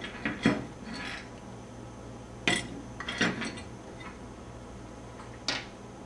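Parts of a disassembled Tippmann 98 Custom paintball marker clinking and knocking against each other and the work surface: several short, sharp clicks spread out with gaps of a second or two.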